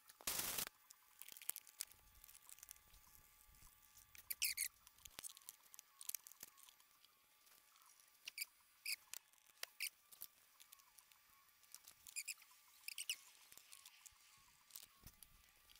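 Hands fitting an engine air intake duct by hand: faint scattered clicks and short high rubbery squeaks every few seconds, with a brief burst of noise right at the start.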